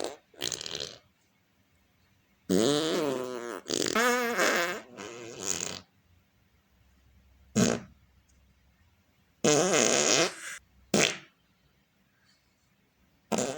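A run of about eight separate fart sounds with short silent gaps between them. Some are brief and sharp, others last about a second with a wobbling, wavering pitch.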